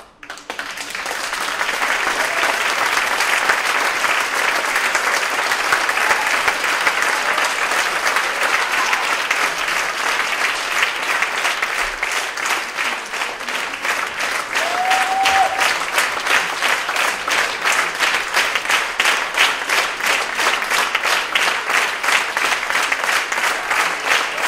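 Theatre audience applauding; about halfway through, the clapping falls into a steady rhythm, the audience clapping in unison.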